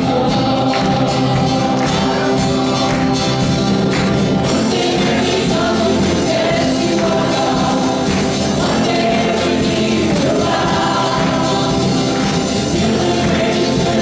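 Church worship band and singers performing a gospel-style song, voices over steady instrumental backing with a tambourine.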